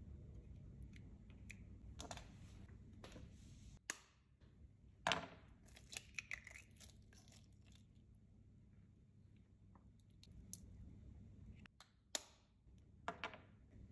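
Eggshells being cracked and pulled apart by hand while separating eggs: a few sharp cracks and short crackly rustles of shell, spread out with quiet gaps between.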